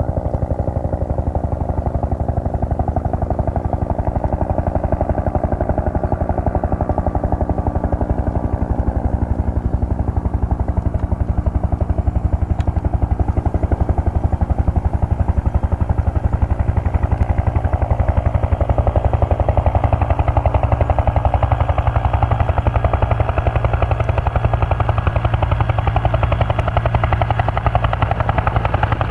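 Helicopter rotors chopping steadily in a fast, even beat, growing slightly louder through the second half.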